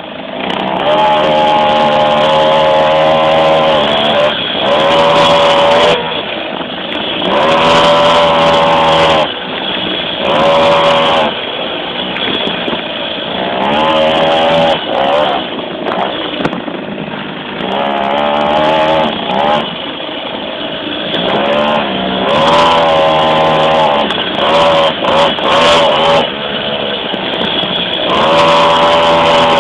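Blata mini moto's small two-stroke engine heard close up from the tank, revving hard over and over: each burst of throttle rises in pitch, then drops back as the rider comes off the throttle.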